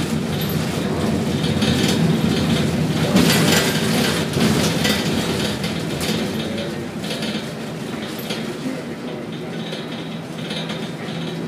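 Container gantry crane machinery running: a steady mechanical rumble with rattling and clinking, loudest a few seconds in and easing off toward the end.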